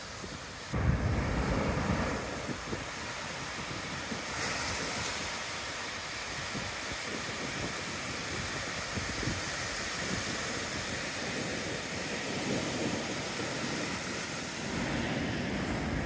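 Ocean surf: waves breaking and foam washing up the sand in a continuous rush, with wind buffeting the microphone. A louder low rumble starts suddenly about a second in and fades after about a second.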